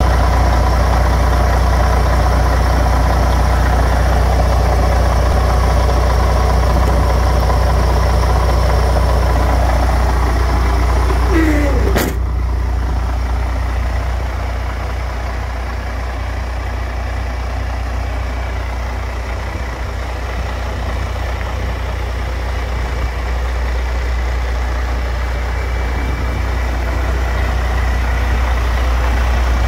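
MAN TGA 18.410 tractor unit's 10.5-litre six-cylinder diesel idling steadily, a deep even hum. About twelve seconds in there is a brief squeak and a click, and the engine then sounds a little quieter and duller.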